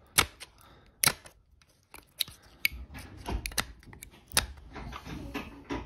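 Small screwdriver prying and scraping between the coil windings of an arc welder's transformer: a run of sharp, irregular metallic clicks and short scrapes.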